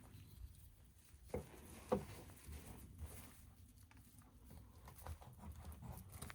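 Faint handling sounds of a knife working on a grouse carcass to cut the wings off at the joint: soft scattered ticks and rustles, with two soft knocks about a second and a half and two seconds in.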